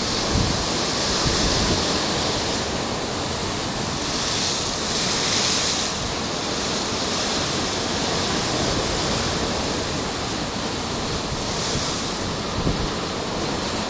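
Steady rushing noise that swells a little about four to six seconds in, with low gusts of wind buffeting the microphone.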